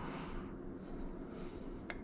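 Kitchen handling sounds: soft brushing movements and one light click of utensil or dishware just before the end, over a steady low hum.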